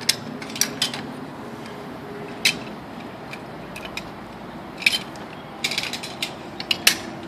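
Metal rope-rescue hardware clinking as a pulley and locking carabiner are handled and clipped onto the anchor: scattered sharp metallic clicks, a few at a time, with a quick run of them near the end.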